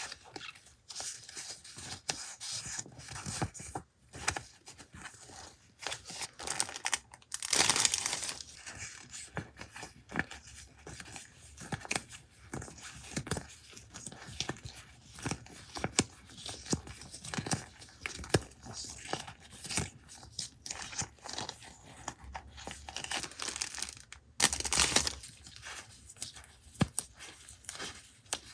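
Paper and sticker sheets handled close up: crinkling, rustling and small crackles as pieces are torn and peeled, with two louder rustles about eight seconds in and near the end.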